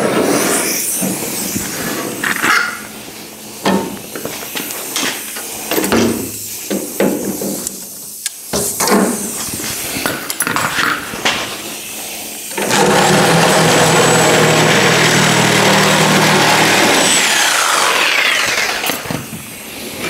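Scattered clanks and knocks of sheet metal being worked. Then a power cutting tool runs steadily with a high whine for about five seconds, cutting through the sheet metal of the car's old outer wheel house, and winds down in pitch as it is released.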